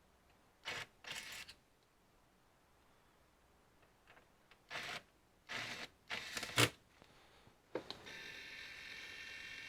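Short scraping and rustling bursts of computer parts being handled during disassembly, with a sharp click at about six and a half seconds. A steady high-pitched whir starts near eight seconds.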